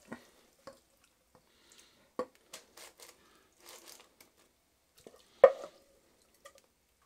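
Wooden spoon scraping and knocking against a bowl while lamb mince is spooned out and dropped onto fries in an air fryer basket. A few scattered soft scrapes and knocks, with one sharp knock about two seconds in and the loudest about five and a half seconds in.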